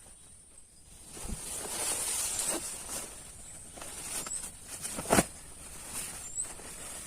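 A steady high-pitched insect drone, with rustling and handling noise; a knock about a second in and a louder sharp knock about five seconds in.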